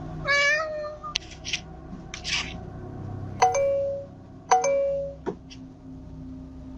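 A doorbell chiming twice, about a second apart, each a sharp strike followed by a short held tone. Before it come a brief call that bends in pitch and a few clicks and rustles.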